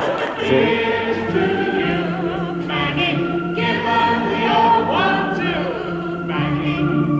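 A choir singing a tune, many voices together with notes held long.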